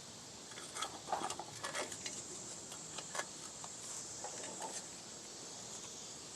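Light metallic clicks and taps of hand tools working on drum brake springs and hardware, a cluster in the first few seconds and a few more later.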